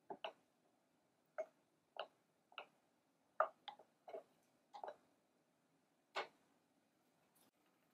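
Faint, irregular light clicks and taps from a small enamel saucepan of tomato soup being stirred with a silicone spatula, about a dozen spread unevenly over several seconds.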